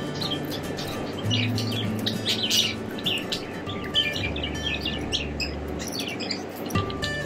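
Caged finches chirping, many short, quick calls overlapping throughout, over background music with low sustained notes.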